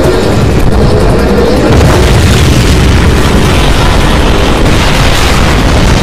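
Explosion sound effects: a loud, continuous booming rumble with no separate blasts standing out.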